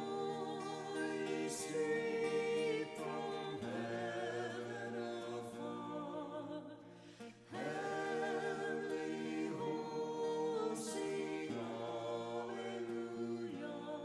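A choir singing a slow, sustained piece in phrases of about four seconds, with short breaks between them.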